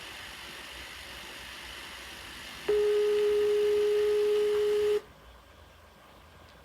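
A steady, loud electronic tone at one pitch starts a little under three seconds in, holds for about two seconds, and cuts off suddenly. VHS tape hiss runs under it and is fainter after the cut.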